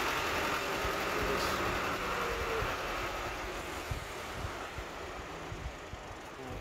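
Street traffic: a passing vehicle's rushing noise that slowly fades away, with low rumble underneath.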